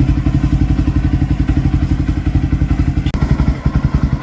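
Jawa 42's single-cylinder engine idling steadily through an aftermarket Red Rooster Performance exhaust, a deep, evenly pulsing exhaust note with plenty of bass.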